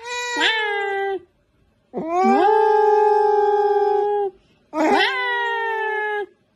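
Tabby cat yowling: three long, drawn-out meows, each scooping up in pitch at the start and then held steady.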